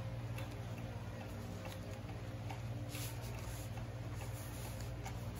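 A sheet of origami paper being opened out and pressed flat by hand on a cloth-covered table: faint paper rustles and light ticks over a steady low hum.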